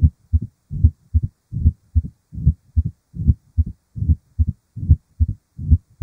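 Recorded heart sounds of mitral stenosis: paired lub-dub beats at about 75 a minute, with a low-pitched, decrescendo, rumbling diastolic murmur.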